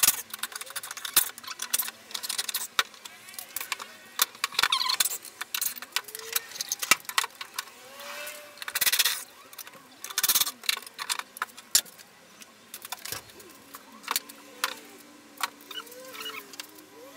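Cordless impact driver backing screws and knockdown fittings out of a wooden chair frame in short runs, among clinks of loose metal hardware and knocks of wooden parts being handled.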